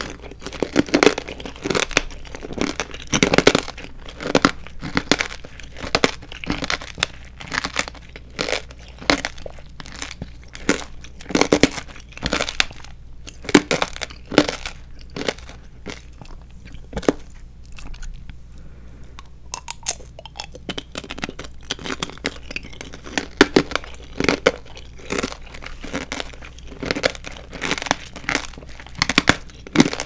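Close-up chewing of a candied strawberry, its hard sugar shell crunching and crackling in irregular clicks. The crunching thins out about two-thirds of the way through, then starts up again.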